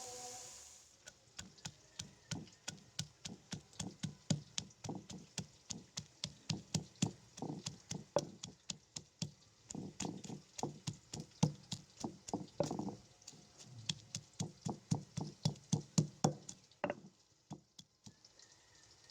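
A knife chopping on a cutting board in quick, even strokes, about three to four a second, pausing briefly near the end before starting again.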